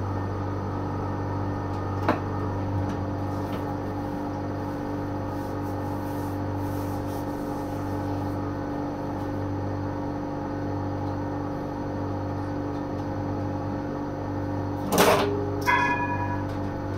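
Steady electrical hum of a stationary tram, heard from the front cab. Near the end comes a short loud hiss, followed by a single bell-like ding that rings briefly.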